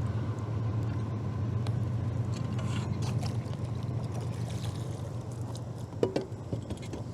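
Boat motor running with a steady low hum, with a few faint clicks and knocks.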